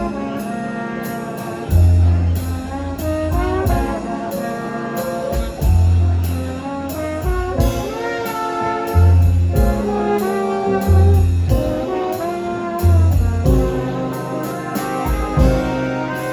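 An orchestra with a brass section playing an instrumental passage, with deep bass notes changing about every two seconds under the melody and a steady high ticking beat.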